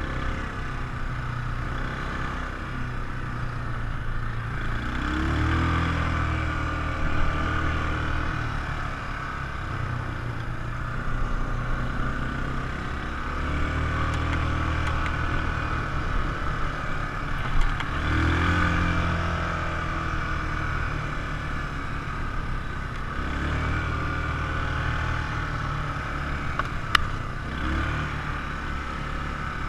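ATV engine running under way, its pitch rising and falling as the throttle is opened and eased several times. There are a few sharp knocks along the way.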